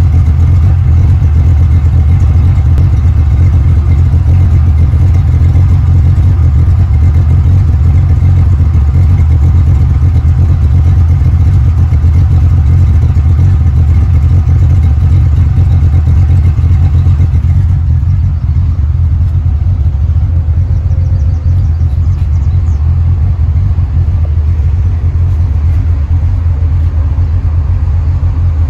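Fox-body Ford 5.0 (302) V8 with an aftermarket cam idling through its full exhaust, with the cam's choppy lope. It runs steadily and gets a little quieter and duller about two-thirds of the way through.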